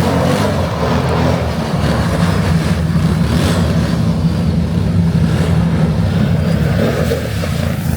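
Car engine running steadily, loud and low-pitched.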